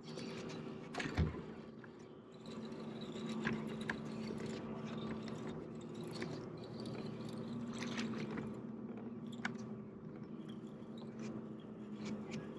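Fishing reel being cranked with scraping and scattered clicks while a hooked fish is fought on a hard-bent rod, over a steady low hum.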